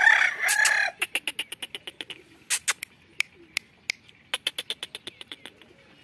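A rooster crowing, the crow ending about a second in, followed by a run of short, sharp clicks at irregular intervals.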